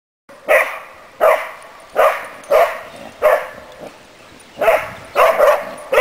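Spanish Water Dog barking at sheep: about nine short, sharp barks, with a pause of over a second midway.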